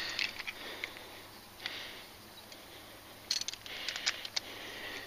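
Faint handling noise of a caught bass being reweighed: scattered small clicks and rustles, with a cluster of them about three seconds in.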